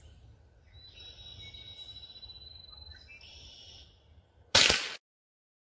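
A single sharp shot from a Rossi RS22 semi-automatic .22 LR rifle firing Remington Thunderbolt 40-grain round nose, about four and a half seconds in.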